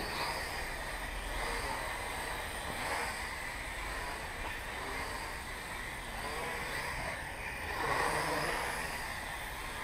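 Blade 180 QX micro quadcopter in flight, its motors and propellers buzzing steadily, the pitch wavering up and down as the throttle changes and swelling about eight seconds in.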